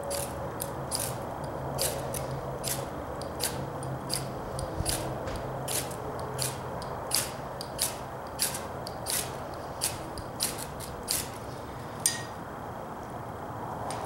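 A small knife scraped down a ferrocerium (ferro) rod again and again, about two quick rasping strokes a second, throwing sparks onto a bird-nest tinder bundle. The strikes stop about twelve seconds in.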